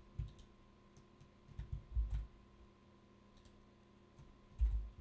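Faint computer mouse clicks scattered through, with a few low dull knocks; the strongest knock comes near the end.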